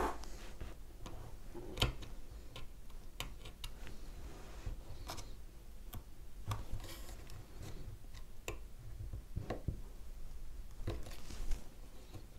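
Small pins being pushed into wooden trim on a model ship with a small hand tool: light clicks and taps at irregular intervals, a sharper one about two seconds in and another near the end.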